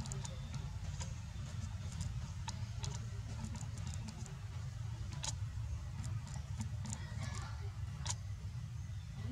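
Outdoor background: a steady low rumble with scattered small clicks and ticks.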